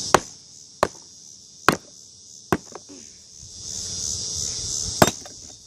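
An alarm clock being smashed on concrete: about five sharp, separate blows spread over several seconds. Crickets chirp steadily in the background.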